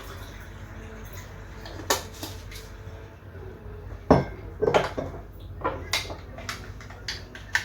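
A spoon clinking against a drinking glass, with several separate clinks, as lemon concentrate is mixed into water.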